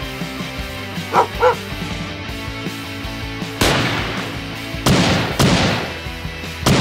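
Background music with added sound effects: two short yelps about a second in, then four sudden blasts of noise, each fading over about half a second, the first about halfway through.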